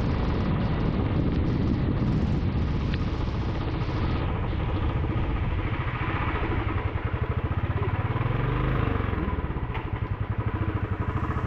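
Royal Enfield Classic 350 BS6's fuel-injected single-cylinder engine running as the bike is ridden, with wind and wet-tyre hiss over it for the first few seconds. It then slows to an even, low-speed thump near the end.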